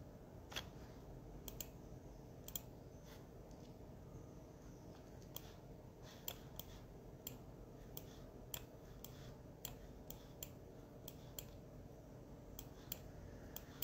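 Faint room tone with scattered light clicks, roughly one or two a second at irregular spacing.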